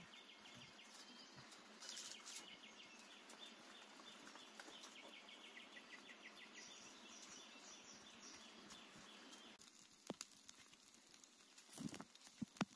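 Near silence: faint outdoor ambience, with a high fast repeating chirr that stops about three-quarters of the way through and a few soft clicks near the end.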